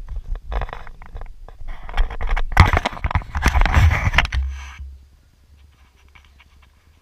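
Scraping and rubbing noise on a floor-level camera as a cat paws at it, with quick scratchy clicks, loudest in the middle few seconds, then dropping away to a faint low hum.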